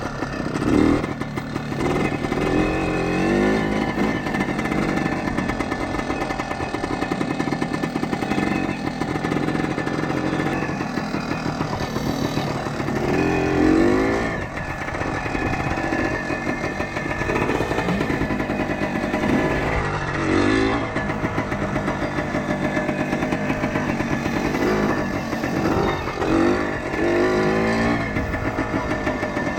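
1976 Kawasaki KT250 trials bike's two-stroke single-cylinder engine running steadily, with the throttle opened into short rising revs several times.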